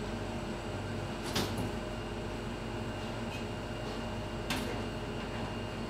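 Steady room hum with two short clicks about three seconds apart.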